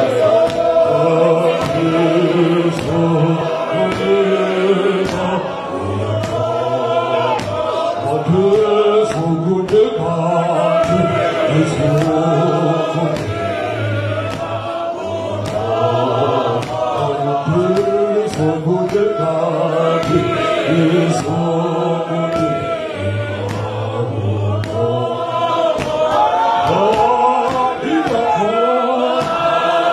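A large men's choir singing a hymn together in harmony, with deep, held bass notes under the melody.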